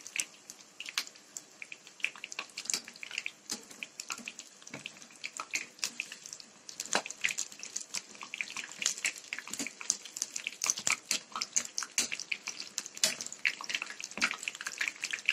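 Batter-coated pumpkin flowers deep-frying in hot oil in a steel kadai: a steady sizzle with dense, irregular crackling and popping.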